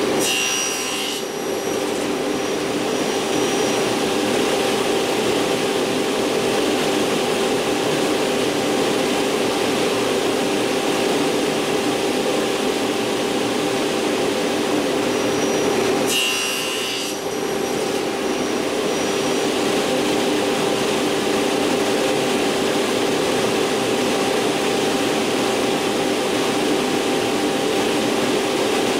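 Sliding table saw running steadily with its blade hum, crosscutting wood twice: once about half a second in and again about sixteen seconds in, each cut a brief change in the saw's sound.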